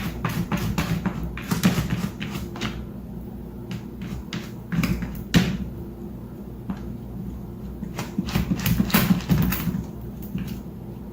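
Irregular clicks, taps and knocks, a few louder than the rest, over a steady low hum.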